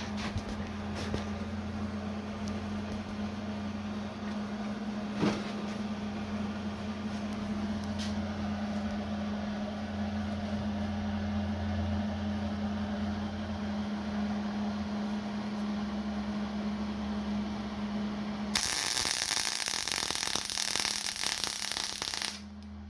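MIG welder humming steadily with a few clicks, then near the end about four seconds of loud hissing arc crackle as a weld is laid, starting suddenly and cutting off abruptly.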